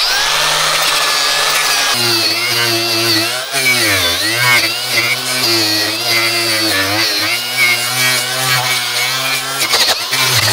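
Angle grinder with a wire cup brush running, scrubbing rust, old tar and tape off a metal roof seam and its screw heads. The motor's pitch sags several times as the brush is pressed into the metal, most deeply about four seconds in.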